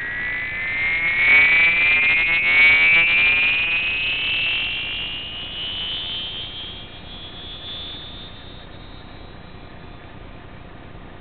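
Electronic raygun sound effect generated by an AVR microcontroller: a synthesized tone sliding slowly upward in pitch, loudest over the first few seconds and fading away about eight seconds in.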